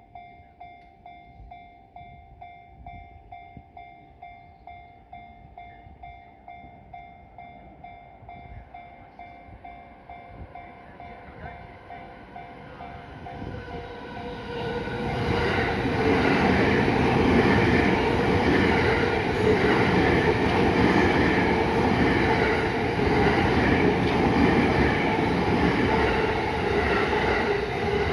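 Japanese level-crossing warning bell dinging steadily. From about ten seconds in, a JR East E231 series electric train approaches, and from about fifteen seconds in it passes loudly through the crossing, its wheel and running noise covering the bell. It eases off right at the end.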